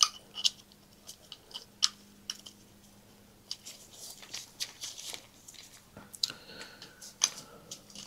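Light clicks, taps and rustles of gloved hands working a new capacitor into a distributor housing, small metal parts knocking and scraping against each other at irregular intervals.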